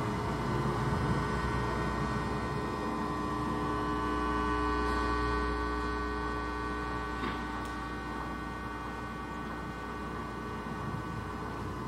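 Steady electrical hum from amplified electronics picking up electromagnetic fields: a low mains-type drone with several steady higher tones layered over it, and a faint click about seven seconds in.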